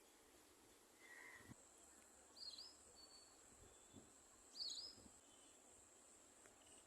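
Two short, faint bird chirps, one about two and a half seconds in and one near five seconds, over a quiet background hiss with a thin, steady high tone.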